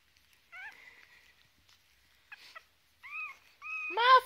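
Three-week-old chihuahua puppy giving short, high-pitched whines and squeaks, faint at first, then coming quicker and louder near the end.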